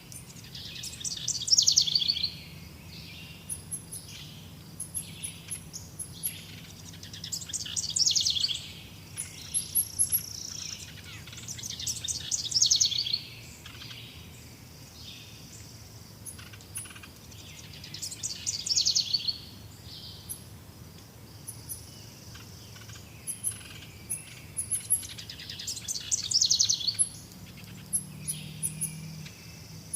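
Forest birds singing: one bird repeats a loud, rapid trilled song phrase about a second long every five or six seconds, over thin high chirps from other birds throughout.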